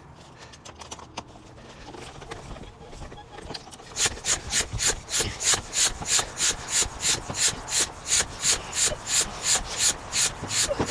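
Quiet rubbing and handling of a bicycle tire on its rim for a few seconds, then a bicycle pump worked in rapid, even strokes, about three or four a second, each stroke a hiss of air as the tire is inflated.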